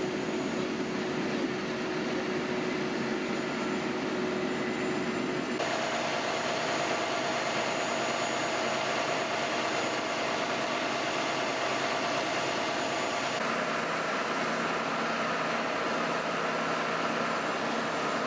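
Steady mechanical drone of idling fire-engine motors and other machinery, with a few steady tones over it. The drone changes character abruptly twice, about six and thirteen seconds in.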